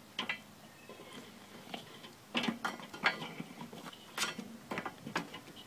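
Metal tongs spreading charcoal briquettes in a Slow 'N Sear basket in a Weber kettle grill: an irregular series of sharp clinks and clacks as the briquettes knock against each other and the metal.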